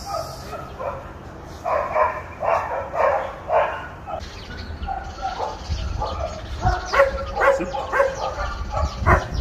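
A dog barking repeatedly, in two runs of short barks: one about two seconds in, and another in the second half.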